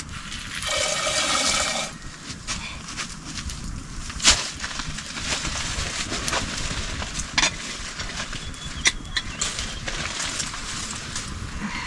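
Metal cooking pots, lids and bowls handled beside an open wood fire: a loud metallic grating about a second in, then scattered knocks and clicks among the light crackle of the burning wood.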